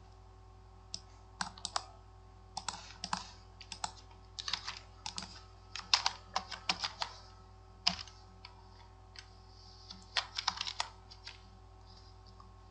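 Computer keyboard typing: irregular clusters of keystrokes with short pauses between them, as login details are entered and pasted into a web form.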